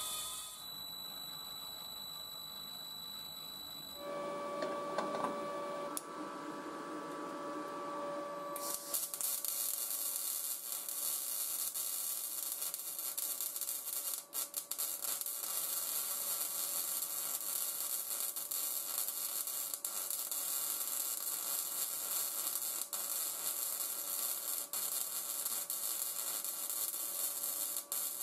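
A cordless drill runs, driving the angle-grinder gearbox of a rotary table with a steady whine that drops to a lower tone about four seconds in. About nine seconds in, an electric welding arc strikes and keeps burning with a steady crackling hiss.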